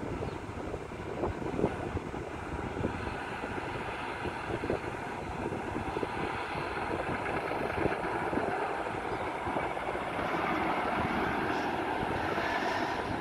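Boeing 777-300ER's GE90 turbofan engines heard from a distance as the airliner climbs away after takeoff: a steady, noisy rumble that swells slightly toward the end.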